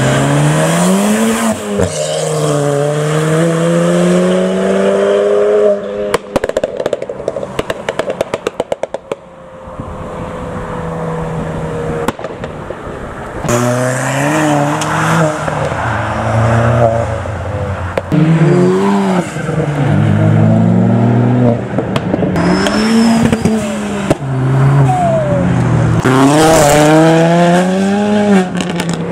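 Ford Fiesta ST hatchbacks accelerating hard, the engine note climbing in pitch and dropping back at each gear change, several runs in a row. From about six to nine seconds in there is a rapid string of exhaust pops and crackles.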